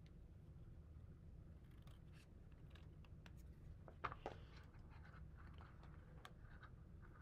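Scissors cutting a paper plate: faint snips and scratchy paper sounds, with a louder pair of snips about four seconds in.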